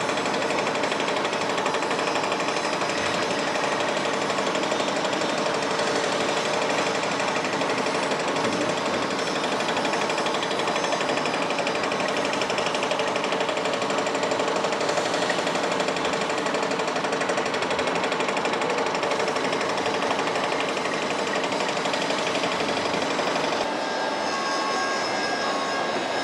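Foundation drilling rig drilling with an auger inside a steel casing: a loud, dense, rapid mechanical rattle that holds steady. Near the end it changes to a slightly quieter, steadier machine noise with a thin whine.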